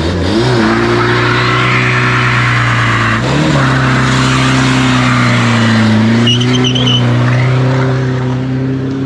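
Car doing a burnout: the engine is held at steady high revs while the spinning rear tyres hiss and squeal. The revs flick up briefly about three seconds in.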